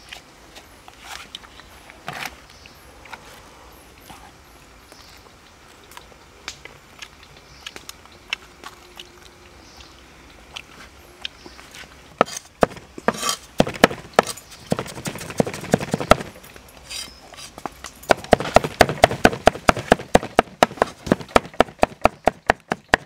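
Cleaver chopping minced snake meat mixed with salt, sugar and chili on a wooden chopping board. There are light scattered taps at first, then sharp chops from about halfway through, settling near the end into a quick, steady run of about five chops a second.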